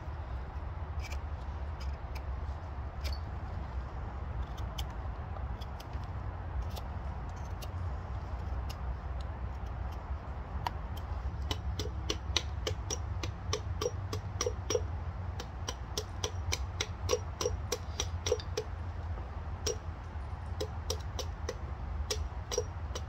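Knife whittling a wooden stake, with scattered light cutting clicks. About halfway through this gives way to a quick run of light wooden knocks and clicks, about three a second, as stakes are worked into the ground beside the logs.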